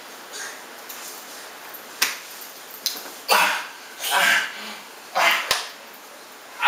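A man and a small boy play-wrestling on a bed: a string of short, breathy grunts and huffs, about five in a few seconds, with two sharp slaps, one about two seconds in and one about five and a half seconds in.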